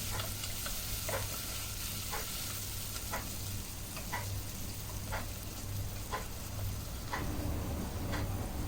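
Onions, garlic and ginger sizzling in hot oil in a pan while a spatula stirs them, scraping or tapping the pan about once a second as they fry until golden.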